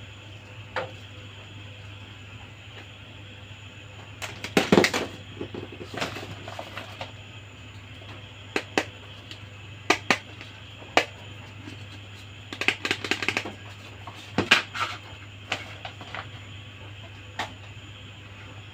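Small plastic toy pieces being handled, giving irregular clicks and taps, some in quick clattering runs, over a steady low hum.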